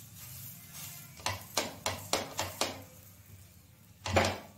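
A flat spatula pressing and tapping a paratha on a hot tawa as it is roasted: a quick run of about six sharp clicks, then a louder knock near the end.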